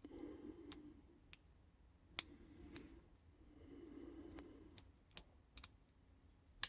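Faint scraping of a hook pick working the pin stack inside a Chubb rekeyable aluminium padlock under tension, with sharp little clicks scattered throughout and one louder click near the end: pins being set during single-pin picking.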